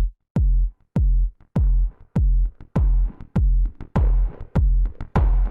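Electronic background music built on a drum-machine beat: a heavy bass kick about every 0.6 seconds, with lighter hits and a hissy upper layer building up over the last few seconds.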